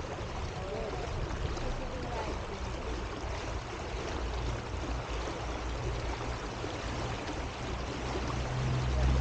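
Water swishing along the hull of a small electric boat under way, with a low steady hum that grows louder near the end.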